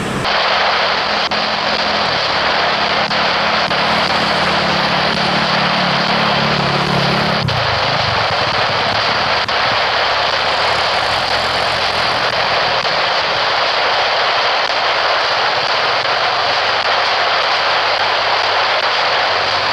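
Jet airliner engines running with a loud, steady rushing noise. A lower hum beneath it fades out about seven seconds in.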